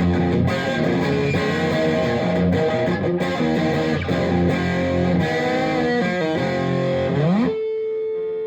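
Electric guitar played through a Bogner Shiva EL34 tube amplifier, with a slightly distorted tone, running through a string of notes. Near the end it slides up into one held note that sustains.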